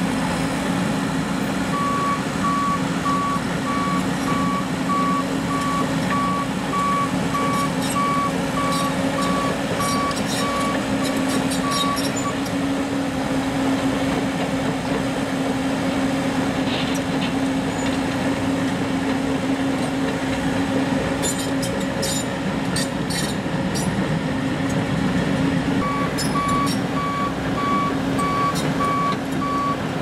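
Case 650M WT crawler dozer's diesel engine running steadily. Its reversing alarm beeps about twice a second for a stretch early on and again near the end. Sharp metallic clicks and squeaks come from the steel tracks at times.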